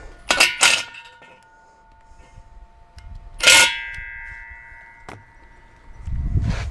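Hollow steel gate post being tilted and knocked, clanging with a lingering metallic ring: two quick knocks just after the start, then one louder clang about three and a half seconds in that rings on for a few seconds. A dull low knock follows near the end.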